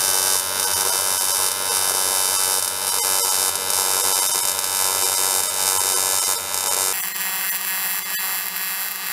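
AC TIG welding arc from an Everlast PowerTig 210 EXT on 2 mm aluminium, buzzing and hissing steadily. About seven seconds in, its low buzz thins out.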